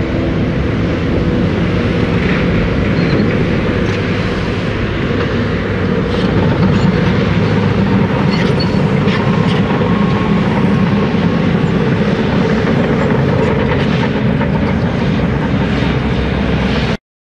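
Heavy diesel engine of a loaded articulated dump truck running as it hauls along, a steady loud rumble that grows a little louder about six seconds in. The sound cuts off suddenly just before the end.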